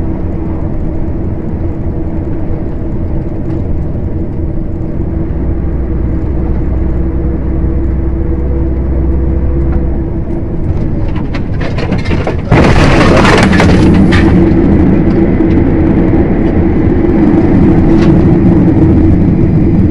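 Truck engine and road noise inside the cab while driving, a steady drone with a low hum. About twelve seconds in, a sudden loud burst of noise lasts a second or two, and after it the drone runs louder.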